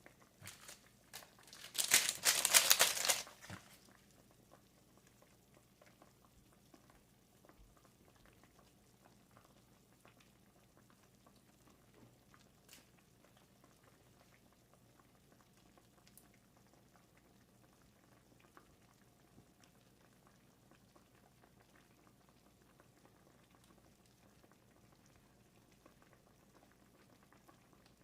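A person slurping spicy ramen noodles, a loud wet slurp lasting about a second and a half, followed by faint scattered clicks.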